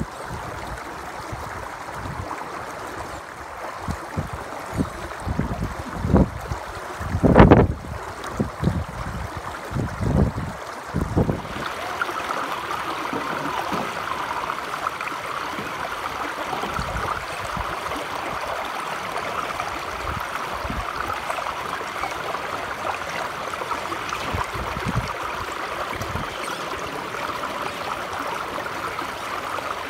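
Wind buffeting the microphone in irregular gusts for about the first eleven seconds. Then the sound changes suddenly to the steady rush of a shallow stream running over rocks.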